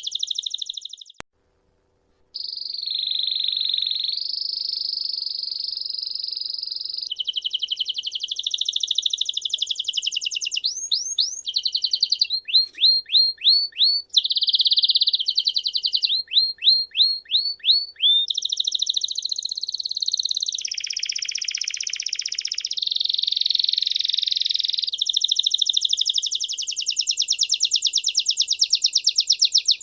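Songbird singing long, rapid trills and rolls, broken by quick runs of short downward-sweeping whistled notes. The song cuts out for about two seconds shortly after the start, then carries on without a break.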